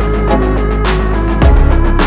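Background music: electronic track with a deep bass, sustained synth notes and a steady beat of sharp drum hits.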